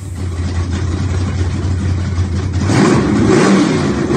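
Car engine running with a steady low rumble, then revving up loudly about two and a half seconds in.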